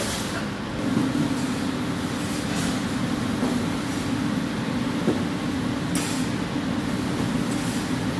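Steady mechanical drone of commercial kitchen machinery, with a couple of brief soft knocks over it.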